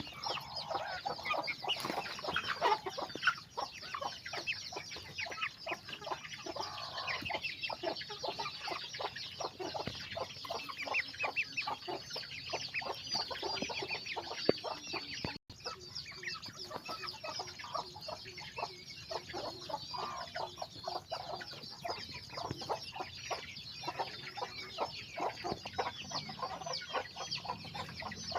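A flock of chickens clucking and calling, many short overlapping calls without a pause, broken only by a momentary dropout about halfway through.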